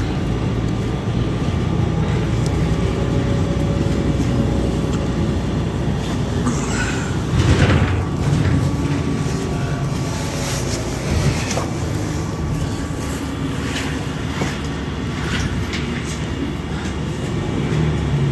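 Inside a moving city bus: steady engine and road rumble with small rattles and clicks, and a louder thump about seven and a half seconds in.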